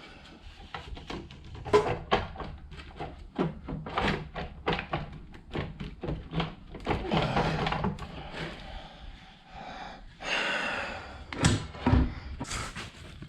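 Irregular knocks, clicks and clunks of metal parts being handled and worked on a disassembled chop saw motor, with a short hiss about ten seconds in.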